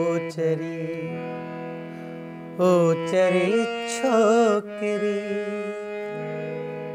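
A harmonium holding sustained chords, with a man singing short, wavering ornamented phrases over it twice in the middle; the harmonium plays on alone through the last couple of seconds.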